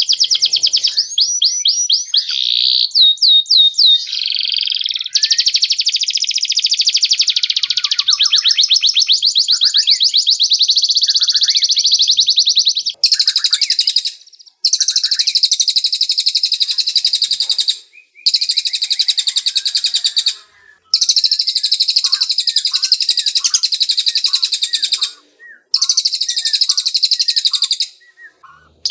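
Domestic canary singing: very fast, high rolling trills, a few rising whistles near the start, then long trilled phrases broken by short pauses.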